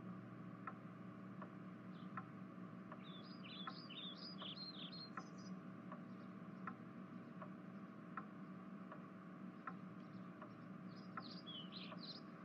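Quiet ambient background: small birds chirping in two quick flurries, about three seconds in and again near the end, over a steady low hum, with a soft tick repeating about every three quarters of a second.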